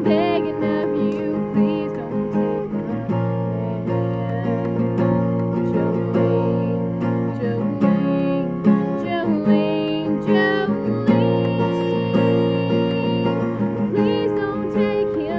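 Music: an acoustic guitar playing chords, with singing at times.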